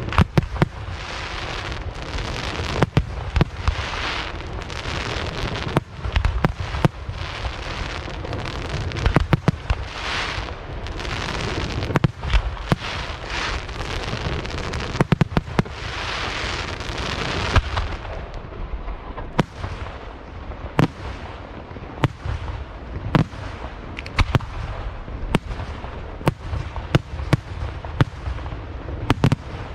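Aerial fireworks display: a rapid run of loud bangs over a dense crackling hiss. After about two thirds of the way through the hiss thins and separate sharp reports go on at one or two a second.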